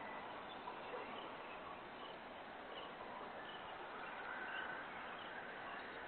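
Outdoor evening ambience heard through a Ring doorbell camera's microphone: a steady hiss with faint, scattered short bird chirps.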